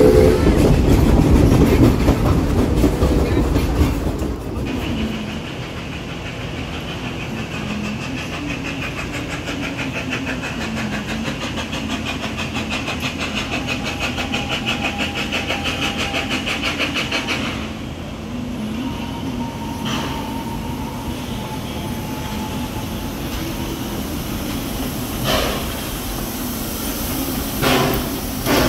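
Narrow-gauge 4-4-0 replica steam locomotive and its passenger coaches running on the track, with a louder low rumble for the first four seconds. A steady high buzz runs through the middle, and a few sharp knocks come near the end.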